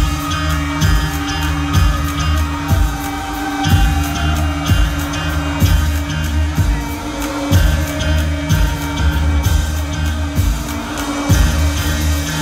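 A band playing live, heard from the audience. A low thump lands about once a second over a held bass tone, with some singing.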